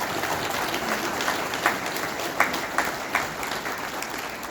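Audience applauding, many people clapping at once, with a few louder single claps standing out; the applause fades toward the end.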